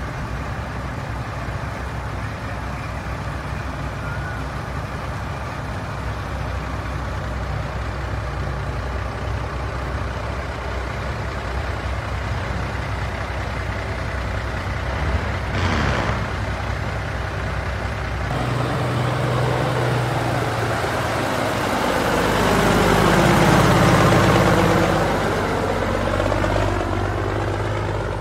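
Engines of vintage Brockway heavy trucks running as they drive by slowly in a line, with a short air-brake hiss a little past halfway. Toward the end one truck passes close by and grows loudest, then fades.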